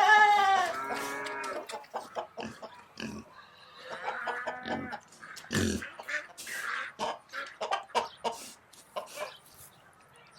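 Farm animal calls: a loud pitched call at the start and another about four seconds in, with scattered short clicks between them.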